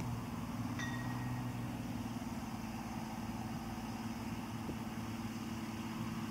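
Engine of a Harvard-replica ultralight aircraft running steadily as the plane moves across a grass strip, its pitch rising slightly a couple of seconds in.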